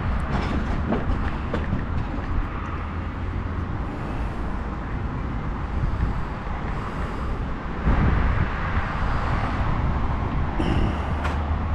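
Strong wind buffeting the microphone: a steady low rumble that swells into a louder gust about eight seconds in.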